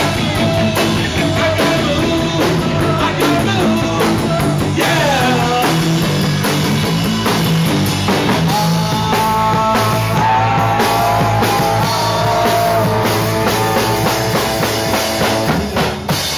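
Live rock band playing loudly: electric guitars, bass and drum kit with a male lead vocal.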